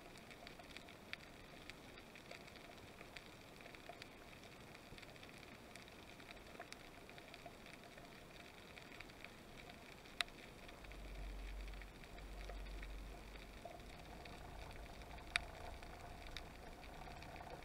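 Faint underwater ambience picked up through an action camera's waterproof housing: a steady hiss scattered with small sharp clicks and crackles, two of them louder, about ten and fifteen seconds in. A low rumble sets in about eleven seconds in and continues.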